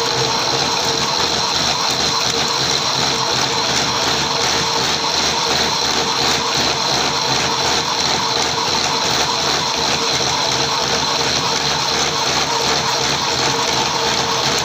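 Metal lathe running steadily while a boring bar cuts the bore of a three-groove V-belt pulley held in the chuck: an even mechanical rush of noise with a constant high whine.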